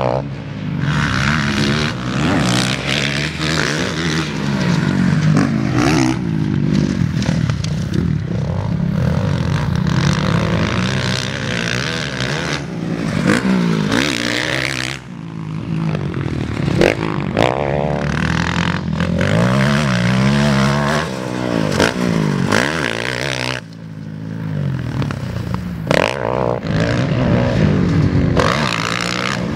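Motocross bike engine revving hard and easing off again and again as the throttle is worked, its pitch rising and falling repeatedly. The sound drops off briefly about halfway through and again about four-fifths of the way through.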